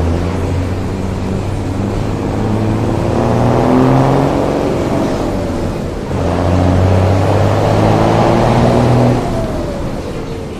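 Motor vehicle engine pulling hard, its pitch climbing through one gear, dropping at a shift about six seconds in, and climbing again. About nine seconds in the throttle comes off and the revs fall away.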